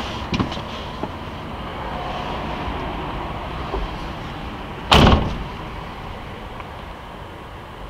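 The driver's door of a 2021 GAZelle NN van cab pulled shut from inside with one loud slam about five seconds in, after a few light clicks.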